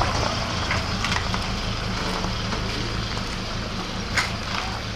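Small flatbed truck's engine running steadily at low speed, with one sharp click about four seconds in.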